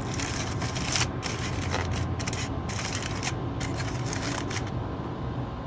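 Aluminium foil crinkling and rustling in quick irregular crackles as it is handled and unwrapped from around the resting steak, over a steady low hum; the crackling dies away about five seconds in.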